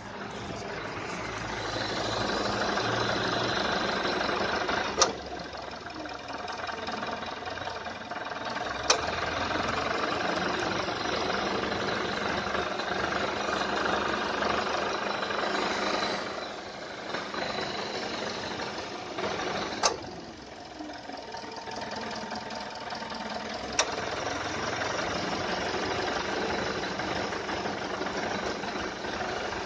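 AC compressor running loud and cycling on and off too often, a sign of short-cycling. The running sound drops away and comes back several times, with a sharp click at several of the changes.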